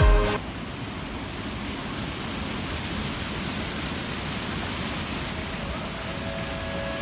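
Waterfall running: a steady, even rush of falling water. A snatch of music ends abruptly just at the start.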